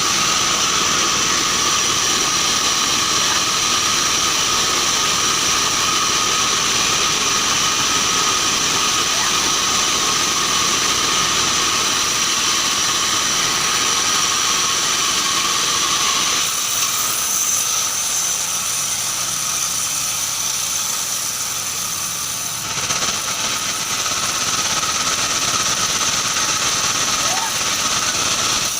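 Band sawmill cutting keranji hardwood: a steady machine run with a constant high whine. Past the middle the lower cutting noise thins out for several seconds, then comes back.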